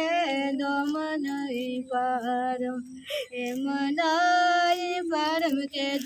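A woman singing a folk-style song unaccompanied, holding long notes with a wavering pitch and pausing briefly between phrases.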